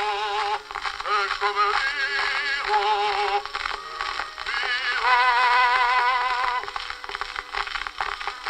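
Edison cylinder phonograph playing an old wax-cylinder recording of a singer with heavy vibrato through its horn. The sound is thin and tinny, with no bass.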